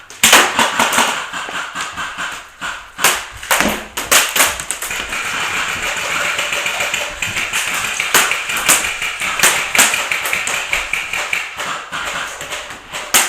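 Airsoft guns firing during a game: sharp cracks, singly and in short clusters, at irregular intervals over a steady hiss of background noise.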